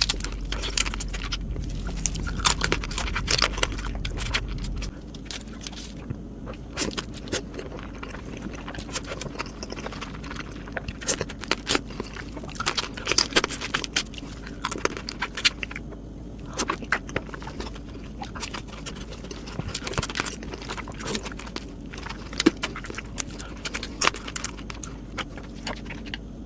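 Close-miked eating of Korean marinated raw crab (gejang): shells cracking and crunching, with chewing, in a dense run of sharp clicks and crackles.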